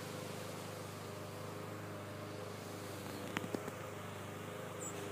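Honeybees buzzing around the hive entrances, mixed with the steady hum of a distant lawn mower engine. A few faint clicks come about three and a half seconds in.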